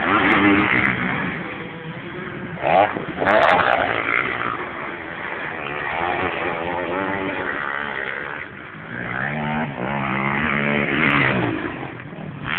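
Motocross motorcycle engines revving hard as riders race round a dirt track, the pitch climbing and dropping with each gear change and throttle burst. It is loudest about three seconds in, with another rising rev near the end.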